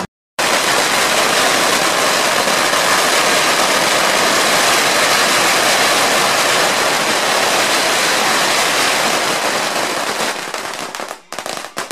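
Strings of firecrackers going off in a dense, continuous crackle, thinning into separate sharp bangs near the end.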